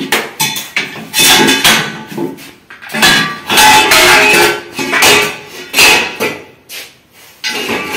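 Irregular metallic knocking and clattering, some knocks with a short ring, as things are pulled out from behind a metal shelving rack and shifted.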